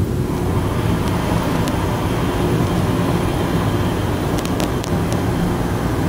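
Car running and driving on the road, heard inside the cabin as a steady low engine and road rumble. A few faint clicks come about four and a half seconds in.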